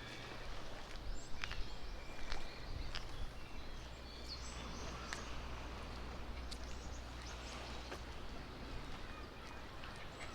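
Footsteps on a hard path with scattered sharp clicks, over a steady low outdoor hum, with a few faint bird chirps near the start.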